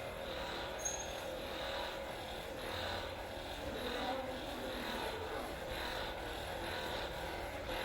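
Percussion massage gun running steadily with a buzzing motor, its sound swelling and easing every second or so.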